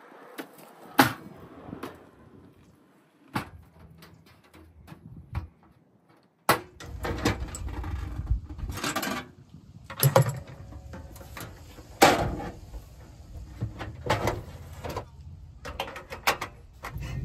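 Camp gear being handled: a string of separate knocks, clicks and clunks as a two-burner camp stove is set up, its lid swung open and its side windscreens folded out. Under the later knocks there is a steady low noise.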